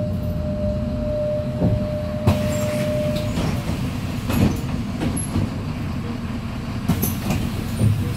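Interior of a MAZ 103.485 city bus with its Mercedes-Benz diesel engine running, a steady low rumble. A single steady tone sounds for about the first three seconds, and a few short knocks and clunks come through the body.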